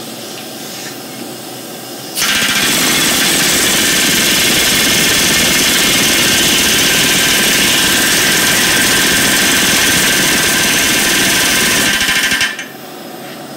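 Pneumatic rivet gun hammering a hot rivet into a steel tractor wheel, a loud rapid continuous hammering that starts about two seconds in, runs for about ten seconds and stops abruptly near the end as the rivet head is formed.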